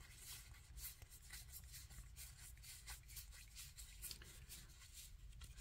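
Near silence, with faint scattered clicks and rubbing of stiff game cards being slid apart and fanned in the hands, over a low steady room hum.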